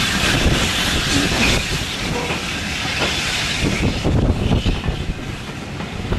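LNER A4 Pacific steam locomotive 60019 Bittern and its train: a steady hiss of steam over a low, uneven rumble, the hiss fading about four seconds in.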